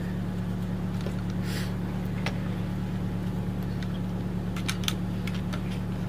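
A steady low mechanical hum, with a few sharp clicks of the plastic snow brush's telescoping handle being extended and adjusted, several close together near the end.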